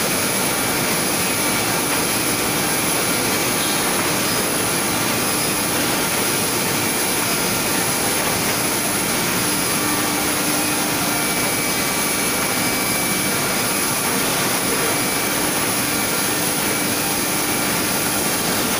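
Powered roller conveyor running: a steady mechanical whir over an even rush of noise, with a few faint unchanging tones and no knocks or rhythm.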